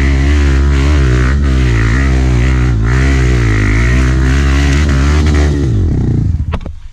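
Trail motorcycle's single-cylinder four-stroke engine running steadily with small rises and falls in pitch, then dropping in pitch and dying away about six seconds in, as when the engine is switched off.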